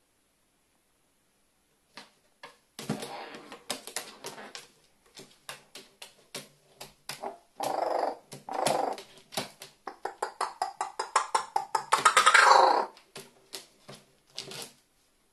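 Carrion crow hammering its beak on a sheet-metal tabletop and tearing at a piece of cardboard: a noisy, rapid run of sharp taps and knocks with bursts of rustling and scraping, loudest about twelve seconds in.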